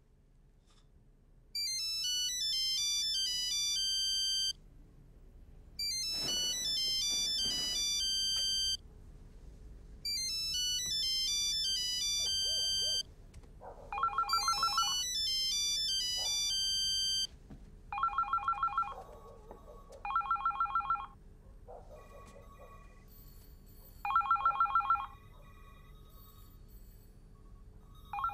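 A mobile phone playing a melodic electronic ringtone in repeated phrases of about three seconds each; from about halfway through, a second phone's electronic trill rings in short one-second bursts, taking turns with the ringtone.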